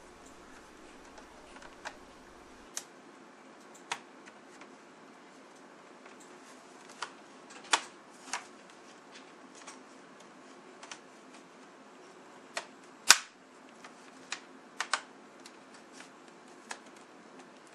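Plastic screen bezel of an HP G71 laptop being pried off with a guitar pick: a series of sharp, irregularly spaced clicks as its snap-together clips pop loose, with one much louder snap past the middle.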